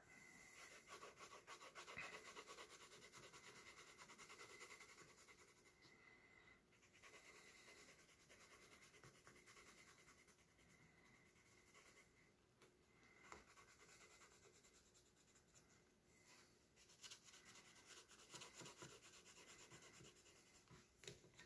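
Faint scratching of a violet coloured pencil scraping back and forth across sketchbook paper as it shades.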